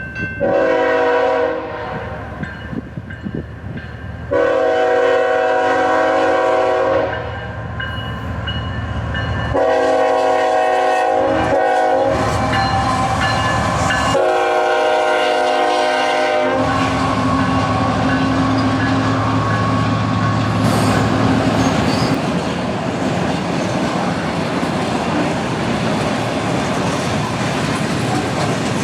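Diesel freight locomotive's air horn sounding four long blasts a few seconds apart, followed by the locomotive passing with its engine running and the train's cars rumbling and clacking over the rails.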